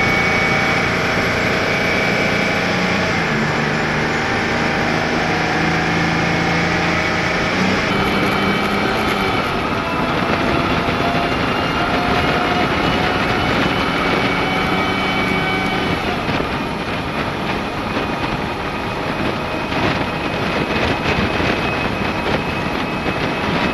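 GMC Brigadier water truck's engine running under way, heard first from inside the cab, its pitch stepping down about three seconds in. About eight seconds in the sound changes to the truck heard from outside at the front: engine under a rushing hiss of water spray and wind, growing rougher with scattered crackles in the last several seconds.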